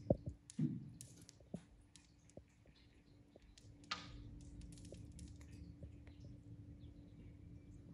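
Faint scattered clicks over a low steady hum, with a short hiss about four seconds in.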